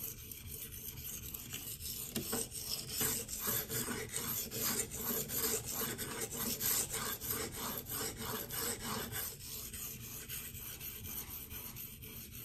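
Cruwear steel knife blade stroked back and forth across a coarse 240-grit resin-bonded diamond waterstone: a scratchy rasp in short, quick, evenly repeated strokes as the edge is ground toward an apex.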